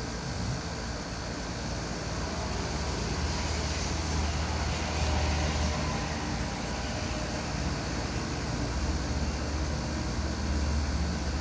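French bulldog snoring, with two long, low snores, the first about three seconds in and the second near the end.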